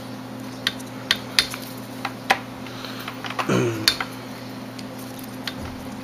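Scattered light clicks and taps of a screwdriver and small plug parts being handled while a replacement three-prong plug is fitted to a cord, with a short murmur from the person about three and a half seconds in.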